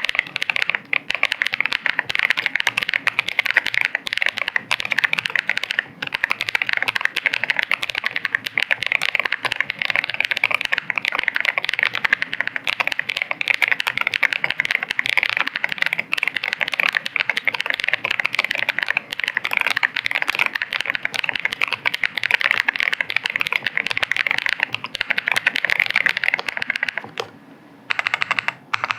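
Rapid, continuous typing on a zenzo ZKB104 HiFi gasket-mount custom mechanical keyboard with 'Princess' linear switches: a dense stream of keystroke clacks. The typing stops for about a second near the end, then starts again.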